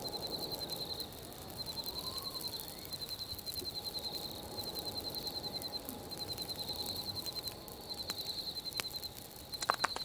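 Winter ambience: a steady low rush of wind, with a high rapid trill repeating in phrases about a second long, and a few sharp campfire crackles near the end.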